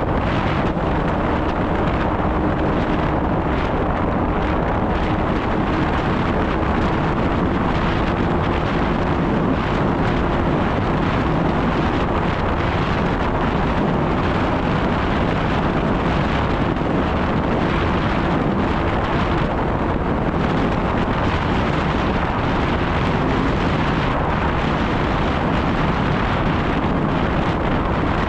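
Snowmobile engine running at a steady speed, mixed with heavy wind noise on the microphone.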